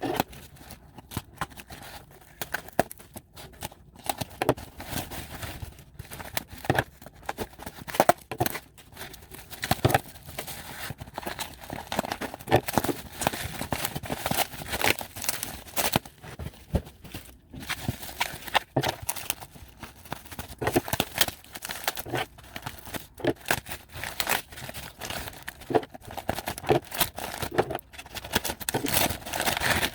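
Packaging being unwrapped by hand: irregular crinkling, rustling and tearing of wrapping and tape, with many sharp crackles.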